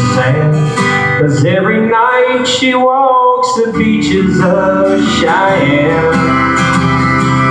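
Acoustic guitar strumming under a singer's voice in a live country song. About two seconds in, the guitar drops out while one sung note is held with a waver, then the strumming comes back in.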